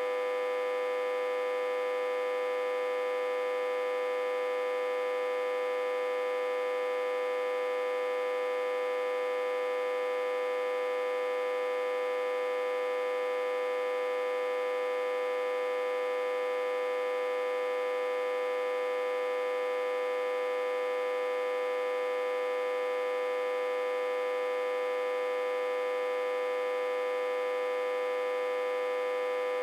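Autotransformer humming steadily, reverse-connected to a step-down transformer with about 60–80 V on its input. It is one unchanging buzzy tone with many overtones, strongest in the middle range.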